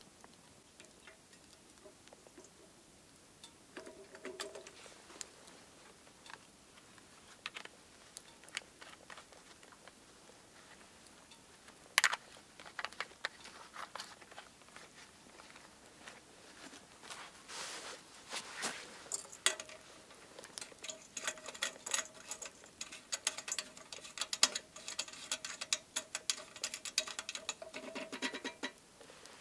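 Wood fire crackling and popping in a small metal camp stove: sparse at first, then busier in the second half, with one sharp snap about twelve seconds in. A faint steady tone runs under the crackling for the last ten seconds or so.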